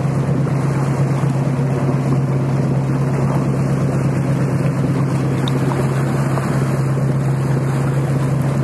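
Riverboat's engine running at a steady cruising drone, a constant low hum over the rush of water and wind as the boat moves along.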